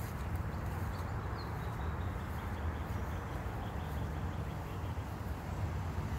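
Steady outdoor background rumble with a few faint bird chirps.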